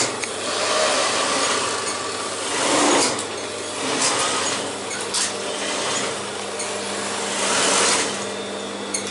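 Electric iron pushed back and forth over a shirt on a padded ironing table, giving rubbing swishes that swell every two to three seconds over a steady low hum.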